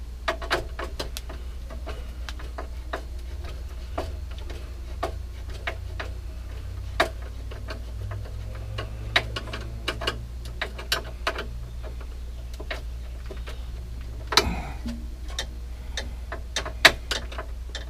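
Flathead screwdriver turning and reseating in a terminal screw on an electrical panel's neutral and ground bar, tightening a wire down: scattered sharp clicks and ticks at irregular intervals over a steady low hum.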